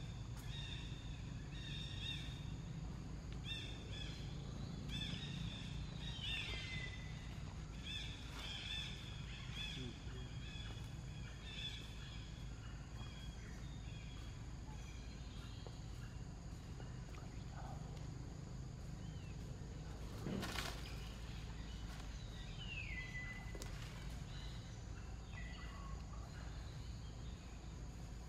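Outdoor ambience: a steady low rumble under repeated short, high chirping calls that are thickest in the first dozen seconds, two falling whistled calls, and a single sharp click about twenty seconds in.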